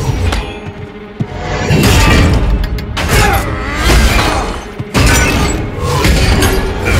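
Film battle soundtrack: orchestral score under several heavy impacts and metallic crashes as a large blade strikes a metal shield.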